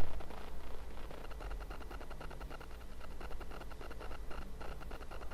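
Faint handling noise: small, irregular clicks and scrapes over a low, steady room hum.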